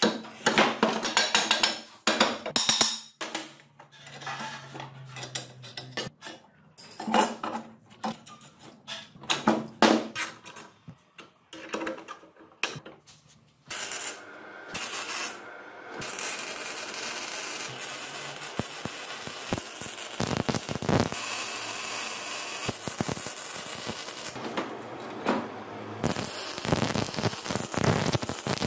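Steel tube parts knocking and clanking under hand tools for the first half. Then a MIG welder's arc runs with a steady crackling hiss, breaking off briefly twice.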